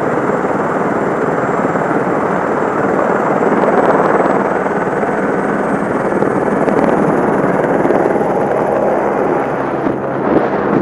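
Heli-ski helicopter running at very close range, a loud steady rush of rotor and engine noise. A thin high whine rises slightly as it lifts off near the end.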